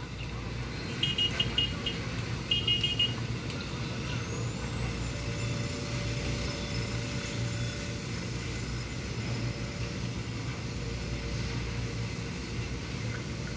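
Street ambience with a steady low rumble, broken about a second in and again about two and a half seconds in by short runs of rapid high-pitched alarm beeps.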